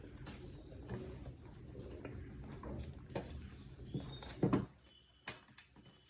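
Close-miked chewing and wet mouth sounds of someone eating chicken biryani, irregular clicks and smacks. The loudest burst comes about four and a half seconds in, after which only fainter clicks remain.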